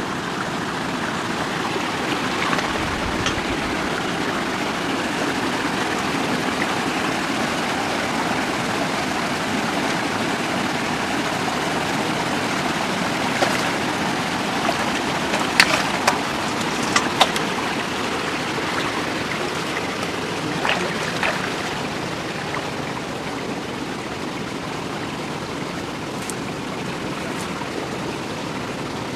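Steady rush of flowing water. A few sharp clicks and splashes come about halfway through.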